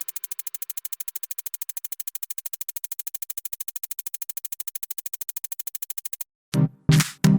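Background electronic music: a fast, steady synth ticking pulse, about eleven ticks a second, then loud choppy synth chords with bass cut in about six and a half seconds in.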